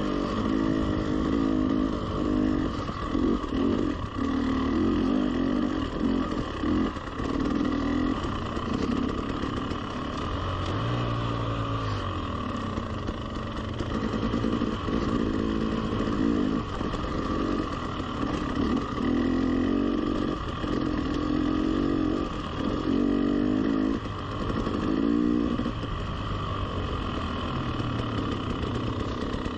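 A 300cc two-stroke enduro dirt bike engine running at low trail speed, the throttle opening and rolling off every few seconds so the engine note rises, falls and briefly drops away.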